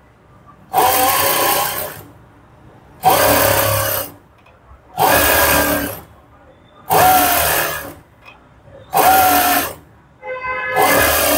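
Electric sewing machine running in short stitching runs, six runs about one every two seconds with pauses between, edge-stitching a folded half-inch fold of fabric.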